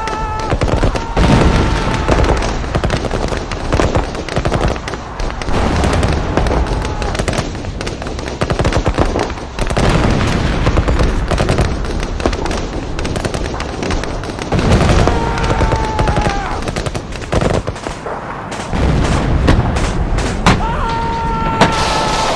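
Mixed battle sound effect: continuous rifle and machine-gun fire with deep booms of explosions. A whistling tone sounds over it briefly near the start, again about two-thirds of the way in, and near the end.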